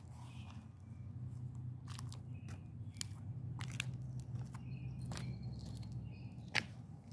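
Outdoor ambience: a low steady rumble with scattered sharp clicks, the loudest about six and a half seconds in, and a few short bird chirps.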